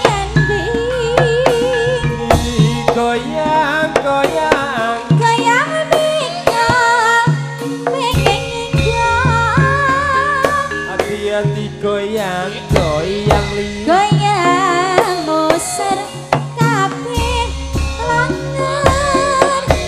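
Javanese gamelan playing tayub dance music: kendhang hand drums beat a steady pattern under a wavering sung melody, with bronze gongs and metallophones.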